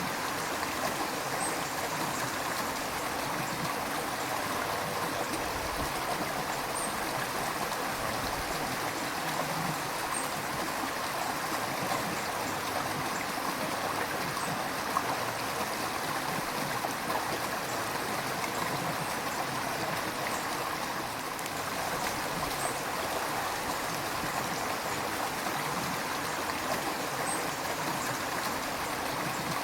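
A river flowing steadily, with a continuous rush of water and some gurgling.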